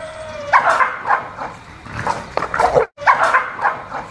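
A dog barking repeatedly in short, sharp barks, with a sudden break a little under three seconds in before the barking resumes.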